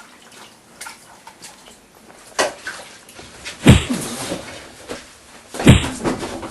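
Two loud sudden bangs about two seconds apart, each with a short falling rumble after it, and a smaller knock before them.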